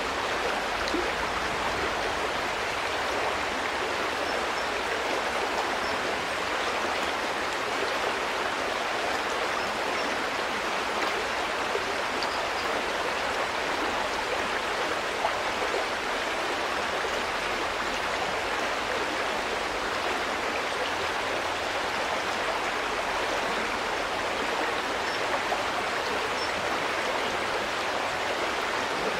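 River water flowing and babbling over stones: a steady, even rush with no change.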